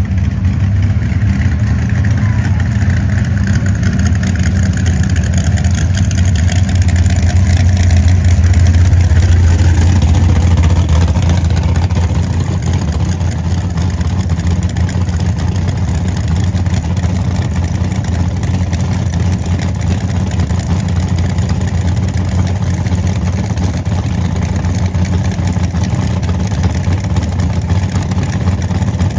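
Drag race car's engine running at a loud, low idle. It swells louder for a few seconds about a third of the way through, then settles back.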